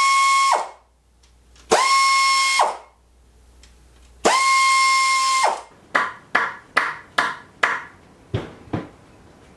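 Cordless power driver spinning bolts out of a Subaru boxer engine, three times: each run spins up into a steady whine, lasts about a second and winds down. About six seconds in, a quick run of about eight sharp metallic clicks or knocks follows.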